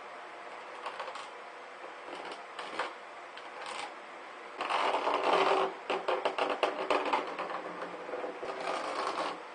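Rustling and clicking of materials being handled, with a louder flurry of quick clicks and rustle starting about halfway through.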